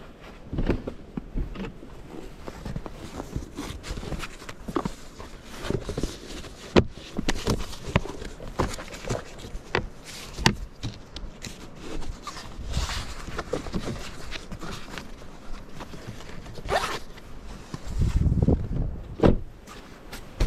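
Zips being pulled on camping gear, among irregular clicks, knocks and rustles of things being handled.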